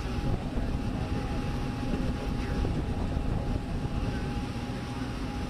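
Steady low rumbling background noise, with a thin steady tone held through it until near the end.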